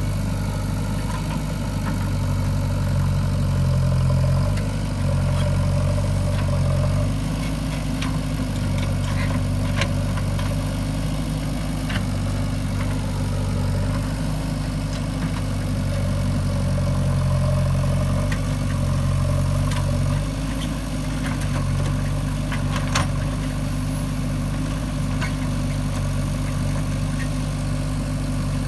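JCB 3DX backhoe loader's diesel engine running steadily at about idle, its note swelling and easing slightly, with a few light clicks and knocks.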